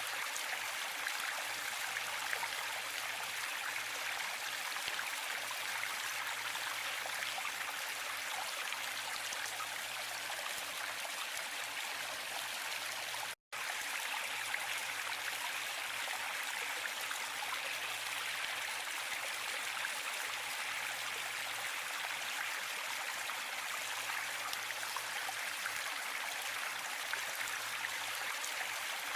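Waterfall: a steady, even rush of falling water, broken once by a very brief cut to silence about thirteen seconds in.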